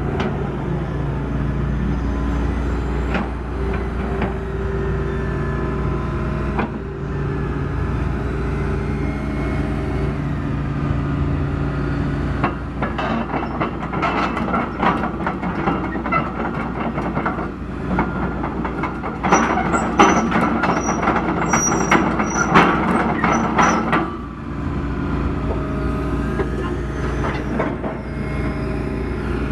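John Deere 225D LC excavator's diesel engine running steadily. From about 12 to 24 seconds in, a stretch of rapid metal clanking and high squeals comes over it, then the engine hum carries on alone.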